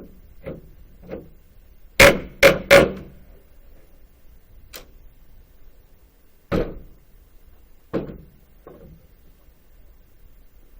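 Hammer blows on a hardwood pallet board and its nails: three quick hard strikes about two seconds in, then two single strikes later, with a few lighter taps between. He is knocking the board to work the nails loose without cracking the wood.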